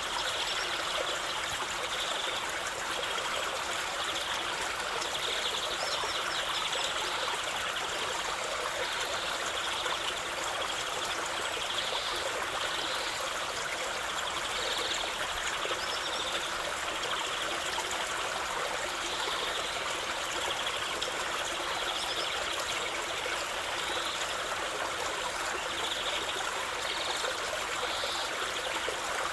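Small stream or brook trickling and babbling over stones, steady throughout with small splashes flickering in and out.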